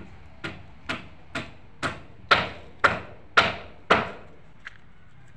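Hammer blows struck in a steady rhythm, eight of them at about two a second, growing louder towards the middle and then easing, each with a short ringing tail; one faint knock follows near the end.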